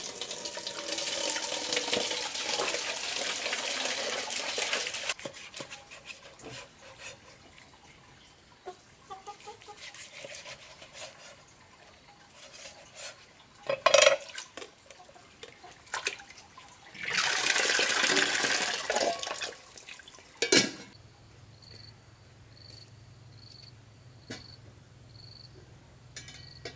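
Water running from a tap into a metal cooking pot for about five seconds, then quiet handling with a sharp knock and a second brief rush of water. In the last few seconds, insects chirp in evenly spaced pulses.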